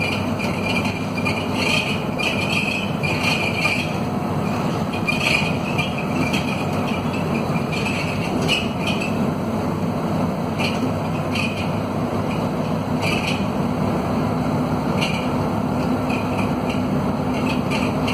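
Scania DC9 five-cylinder diesel of a Scania K230UB city bus pulling steadily under load, heard from inside the cabin. Loose body panels and windows give irregular short rattles every second or so, typical of these worn, battered buses.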